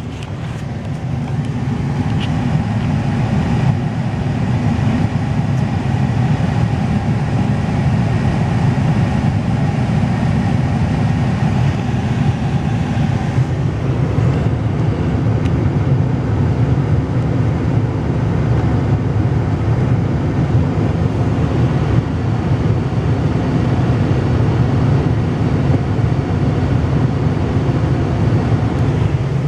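Pickup truck driving, a steady low engine and road rumble heard from inside the cab, with a higher hum that drops away about halfway through.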